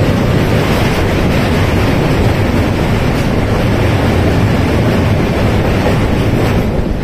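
Passenger train running at speed over a steel truss bridge, a steady loud rush of wheel and running noise mixed with wind blowing on the microphone from an open coach door.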